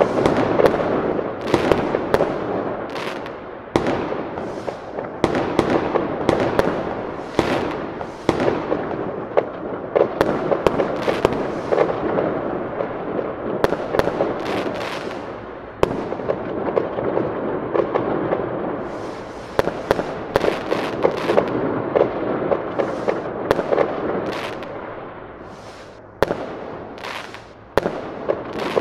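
Fireworks going off in a dense, continuous barrage: many sharp bangs and pops one after another over a steady crackle.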